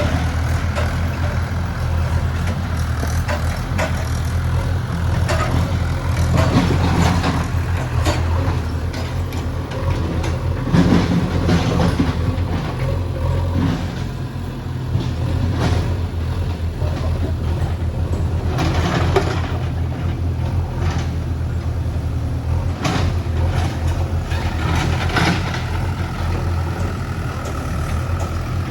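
A heavy diesel engine running steadily under load, with intermittent knocks and scrapes scattered throughout.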